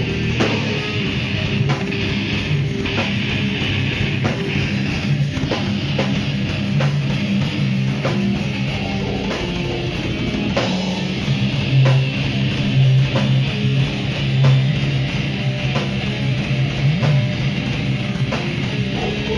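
Heavy metal band playing live: electric guitars and bass riffing over a drum kit, with drum hits running steadily throughout.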